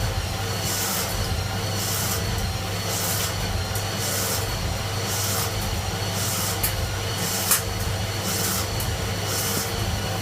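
A CNC machine tool running: a steady low hum, with short hissy bursts every second or two and two sharp clicks a little past the middle.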